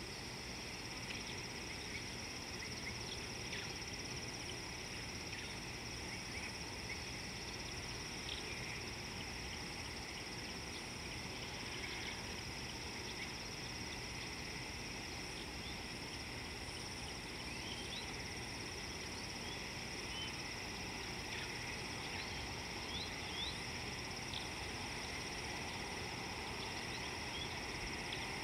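Steady high-pitched insect chorus, the drone of crickets or similar insects, with short bird chirps scattered through it over a low background rumble.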